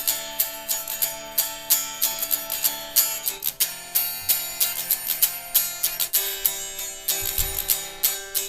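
Guitar strummed in a steady rhythm, with the chords changing twice: an instrumental passage of a song, with no singing.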